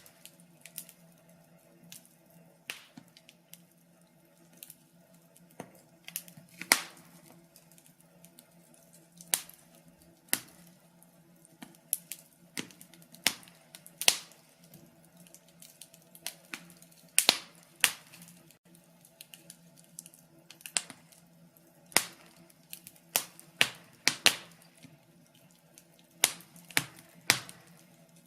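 Wood fire in a fireplace crackling, with irregular sharp pops and snaps, some much louder than others, over a faint steady low hum.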